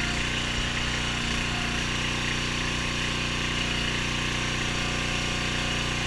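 The engine of a hydraulic log splitter running steadily.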